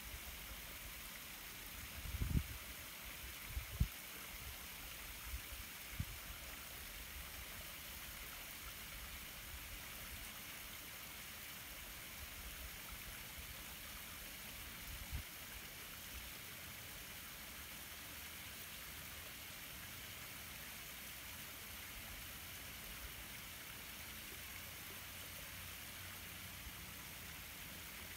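Faint, steady outdoor hiss, with low bumps of wind on the microphone a few times in the first six seconds and once near the middle.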